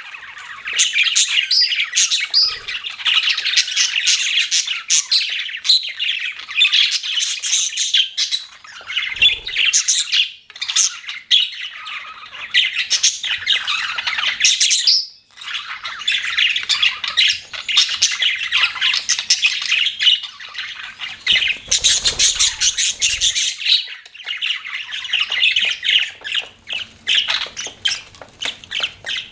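Budgerigars chattering and chirping non-stop in a dense, rapid, squawky warble, broken by one brief pause about halfway through.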